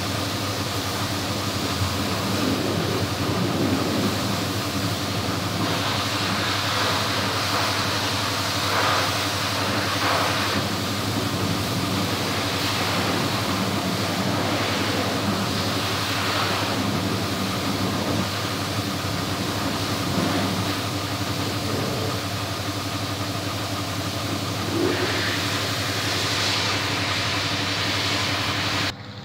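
Steady machine hum: a motor running without pause at an even pitch, over a haze of noise.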